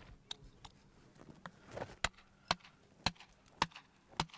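Hand tool striking sandstone, cutting a hole in a quarry block to seat a splitting wedge: a few light taps, then from about two seconds in five sharp, evenly spaced strikes about two a second.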